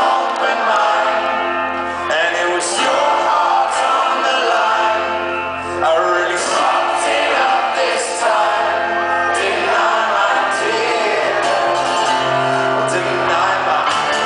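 Folk-rock band playing live, with banjo, acoustic guitar, double bass and keyboard under a male lead vocal.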